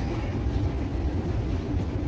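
Steady low rumble of a Dubai Metro train running, heard from inside the passenger car.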